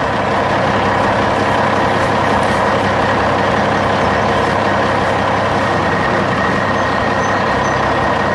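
Heavy truck engine running steadily under load, an even, continuous drone with no change.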